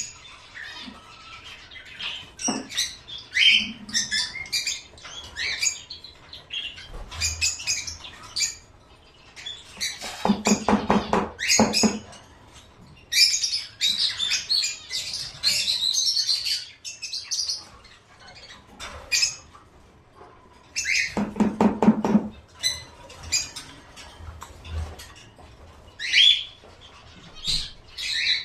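Small caged birds chirping and tweeting in quick, irregular high calls, with two short spells of rapid rattling chatter, about ten and twenty-one seconds in.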